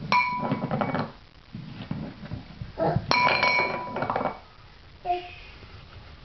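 A metal dog bowl rattling and ringing on a tile floor as a baby pushes and tips it, in two clattering spells about three seconds apart.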